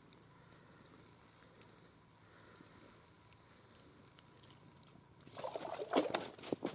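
A northern pike pulled up through an ice-fishing hole: faint line handling for about five seconds, then a sudden loud splashing as the fish breaks out of the water in the hole, followed by quick slaps as it thrashes on the snow-covered ice.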